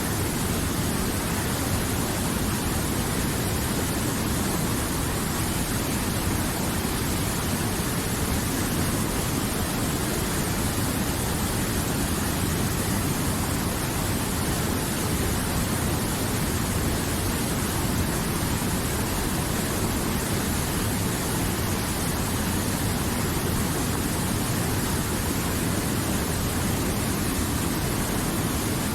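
River water flowing in a steady, even rush with no breaks.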